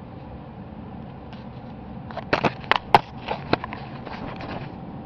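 A quick run of sharp clicks and knocks starting a little over two seconds in, loudest around three seconds, then a few lighter ones, over steady background noise.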